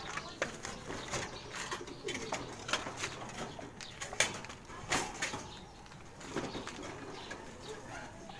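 Racing pigeons in a wire-cage loft: a few soft coos, with scattered clicks and knocks and some wing flapping as the birds move about.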